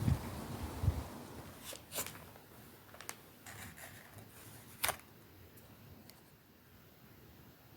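Quiet handling noises indoors: a few soft low thumps, then a handful of sharp light clicks and taps, the loudest about five seconds in, trailing off to near silence.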